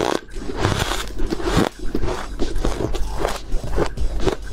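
Fluffy frozen ice being bitten and chewed: a quick run of short, crisp crunches.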